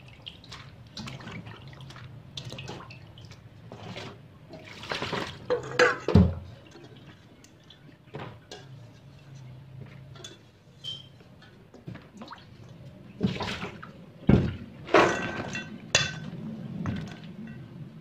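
Hands swishing and splashing water in a stainless steel bowl while washing seeds, with irregular splashes and a few sharp knocks of the bowl. The loudest come about a third of the way in and again near the end.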